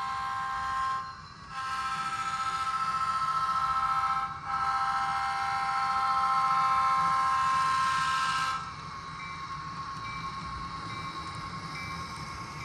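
Sound-decoder diesel horn of an HO-scale PRR SD45 model blowing three blasts, the last two long, then cutting off about eight and a half seconds in. After that, the decoder's diesel engine sound hums steadily under the quieter rolling of the train on the track.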